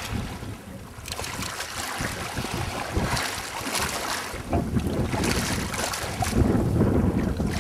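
Wind buffeting the microphone over the wash of choppy sea water, with the low rumble of the gusts growing stronger about halfway through.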